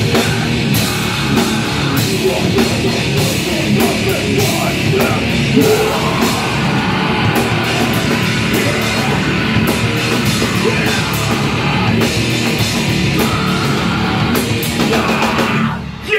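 Live heavy rock band playing loud: electric guitar, bass and drum kit with crashing cymbals, and a vocalist shouting into the microphone. The song cuts off near the end.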